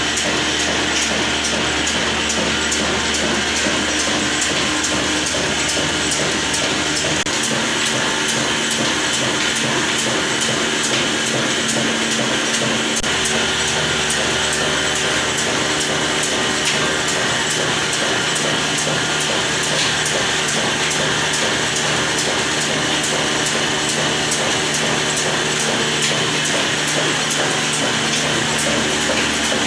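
An old black single-cylinder diesel engine with a large flywheel runs steadily with a rapid even beat. It belt-drives a chakki flour-grinding mill, which runs loudly as grain is fed in.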